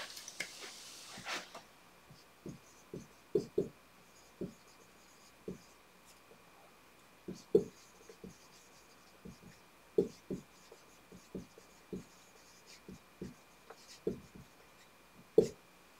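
Dry-erase marker writing on a whiteboard, in a string of short, irregular strokes with brief pauses between them.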